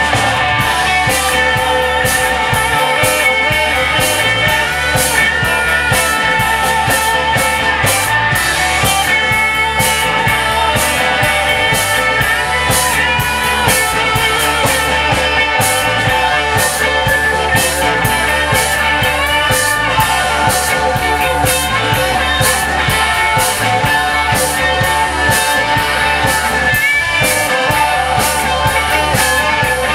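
A live psychedelic rock band playing: electric guitars, bass, drum kit and keyboards, with a violin bowed over the top. Loud and steady, with a driving drum beat and long held and sliding notes.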